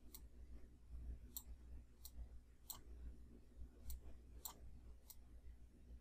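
Faint computer mouse clicks, about seven at irregular intervals, over a low steady hum.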